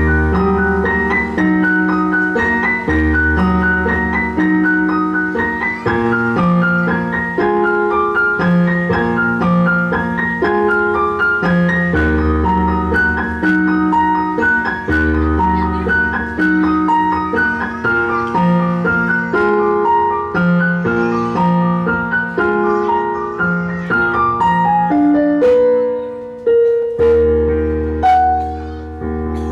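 Yamaha electronic keyboard played in a piano-like voice: a slow melody over held chords, with deep bass notes struck every second or two. There is a brief pause and change in the playing near the end.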